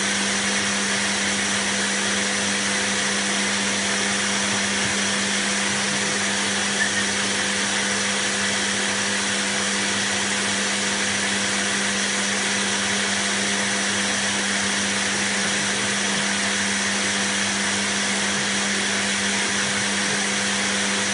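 Canister vacuum cleaner left running steadily: an even rush of air over a constant low motor hum.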